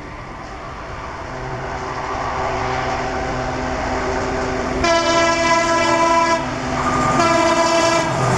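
EMD WDG4 diesel locomotive approaching, its engine rumble growing louder, then sounding its horn in two long blasts: the first about five seconds in, the second starting about seven seconds in and held on.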